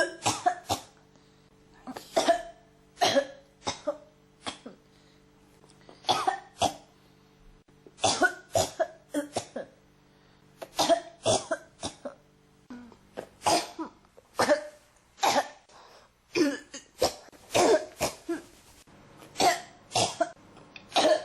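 A person coughing over and over, in short fits of two or three harsh coughs every second or two, without letting up.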